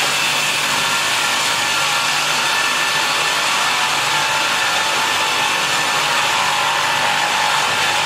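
Automatic multi-blade rip saw cutting a log lengthwise into several boards at once: a steady, even sawing noise with faint steady machine tones through it.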